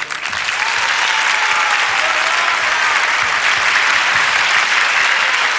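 Audience applauding steadily as the song ends, with a few faint voices calling out early on.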